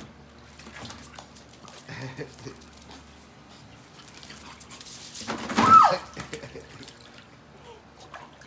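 Bulldog puppies splashing and pawing in a shallow plastic kiddie pool of water, with small scattered splashes. About five and a half seconds in there is one short, loud cry that falls in pitch.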